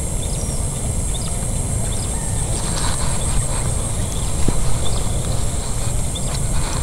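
Outdoor ambience: a steady low rumble of wind on the microphone under a continuous high-pitched insect drone, with scattered light ticks and rustles of grass.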